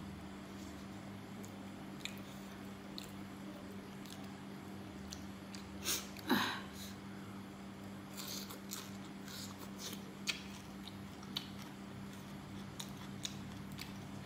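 A person chewing food close to the microphone: soft crunches, smacks and small mouth clicks, with one louder mouth sound with a falling pitch about six seconds in. A steady low hum runs underneath.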